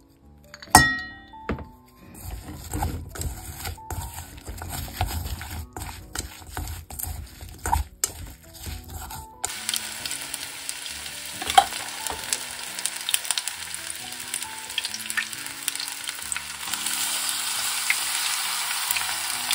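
Ice clinks in a glass as iced water is poured into the batter. Chopsticks then stir the apple, yuzu and mitsuba kakiage batter in a stainless steel bowl, tapping and scraping. About nine and a half seconds in, this gives way to the steady crackling sizzle of spoonfuls of kakiage deep-frying in oil at about 160°C, with faint background music underneath.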